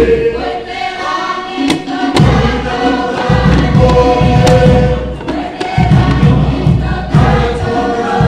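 A group singing in chorus for a traditional Pukapukan dance, with a low pulsing accompaniment that drops out and returns several times.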